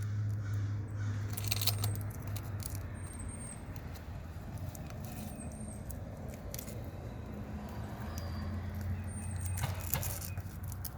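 Light metallic clinking and rustling of stripped electrical wires being twisted together by hand, with a few sharper clicks, over a low steady hum that fades out about two seconds in and returns near the end.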